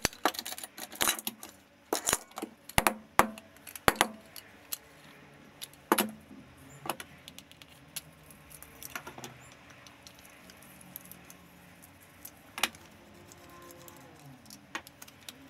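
Makita MLT100 table saw rip fence being taken apart on a wooden workbench: its aluminium rail and locking head clink, rattle and knock. There is a flurry of sharp clicks and clatters over the first few seconds, then only occasional single clicks.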